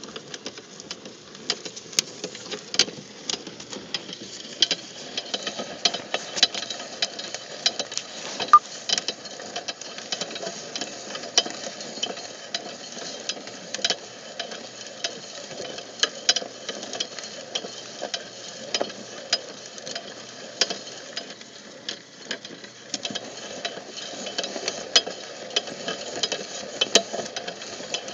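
Inclined spiral feed auger turning through wood chips: a steady scraping rustle with frequent sharp ticks and clicks as the chips rattle against the spiral and its housing.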